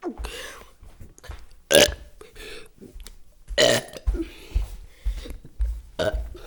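A person burping again and again: four main burps about two seconds apart, the loudest two near the middle, with smaller ones in between.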